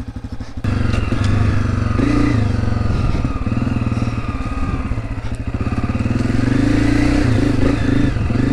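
A Honda CRF250F's single-cylinder four-stroke dirt bike engine idling briefly, then running louder about half a second in as the bike rides along, its pitch rising and falling with the throttle.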